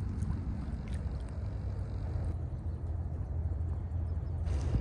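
Steady low rumble of outdoor background noise with no distinct event in it. Its character changes abruptly about two seconds in and again near the end, where separate shots are cut together.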